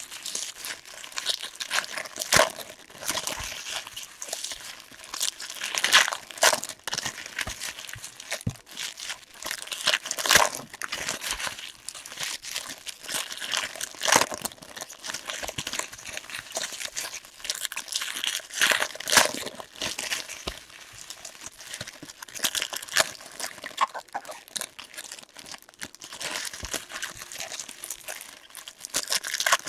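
Trading-card pack wrappers crinkling and tearing as the packs are handled and ripped open, in irregular crackling strokes.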